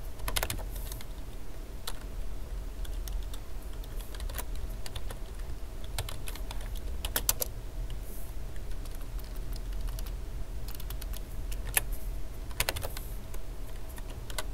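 Computer keyboard keys being pressed in scattered single taps and short quick runs, over a steady low hum.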